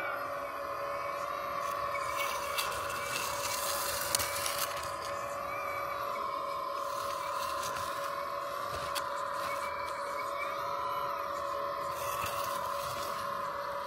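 Electric hydraulic pump of a 1/14-scale CAT 330F RC excavator whining steadily, its pitch wavering up and down as the boom and bucket load it while digging hard soil. Short bursts of scraping noise come about two to four seconds in and again near the end as the bucket works the dirt.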